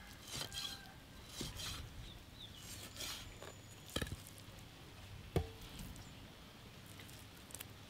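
Knife working through a large trevally's boneless flesh: faint short scraping and cutting strokes, with two sharp knocks, the louder about five and a half seconds in.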